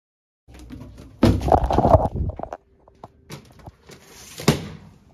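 Rustling and handling noises with scattered clicks, loudest in a rough stretch a little over a second in, then a sharp knock about four and a half seconds in.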